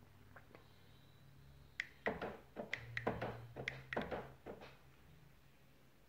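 A quick, irregular run of about a dozen clicks and knocks over about three seconds, some with a brief ring, in a closed car cabin over a faint low hum.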